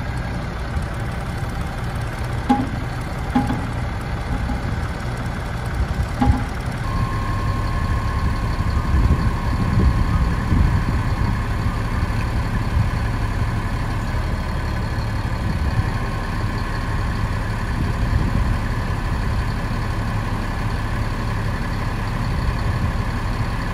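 Ford F750 truck's diesel engine idling steadily, with a few light clicks early on. About seven seconds in, a steady high whine joins the engine sound and holds.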